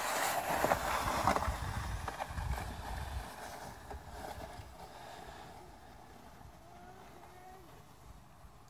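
A plastic sled sliding over packed snow: a rushing, scraping noise with a low rumble, loudest in the first three seconds and then fading as the sled moves away.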